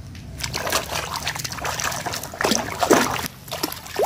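Water splashing and sloshing as a muddy plastic toy saw is rubbed clean by hand in a tub of water, starting about half a second in, with a few louder gurgles after the middle.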